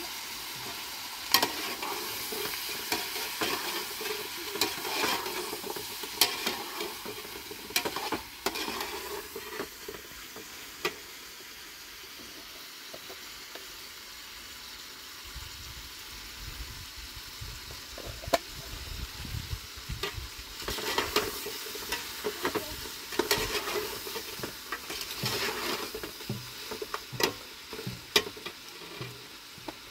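Meat sizzling in an aluminium pot on a gas stove while a metal spoon stirs it, scraping and clinking against the pot. The clinking comes in the first few seconds and again in a cluster about two-thirds of the way through, with a quieter stretch of plain sizzling between.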